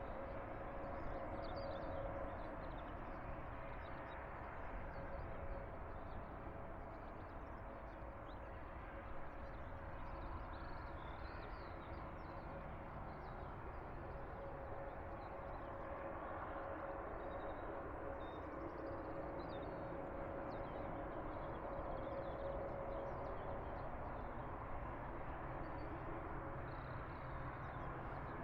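Steady drone of aircraft engines running, with a constant hum held throughout, and faint bird chirps over it.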